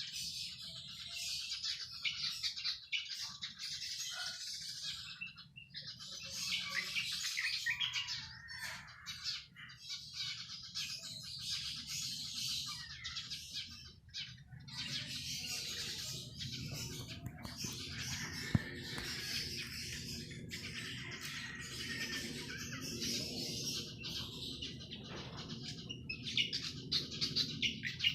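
Many small birds chirping and singing at once, their calls overlapping continuously. A low, steady hum joins underneath from about halfway through.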